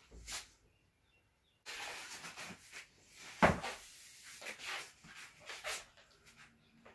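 Large framed canvases being shifted and handled: a run of rubbing and scraping of wood and canvas, with one sharp knock about three and a half seconds in.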